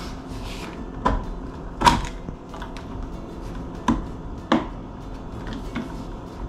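Scattered sharp wooden knocks and clicks of a screwdriver working at the adjustment screw of an old wooden level on a countertop, four of them standing out, the loudest about two seconds in.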